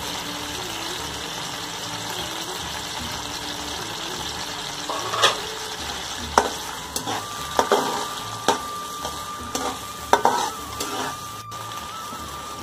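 Chopped onions frying in hot ghee in a stainless-steel karahi, a steady sizzle. About five seconds in, a slotted steel spatula starts stirring them, with scattered clicks and knocks against the pan.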